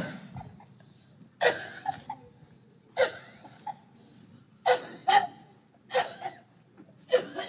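A woman retching and vomiting, five short heaves about a second and a half apart.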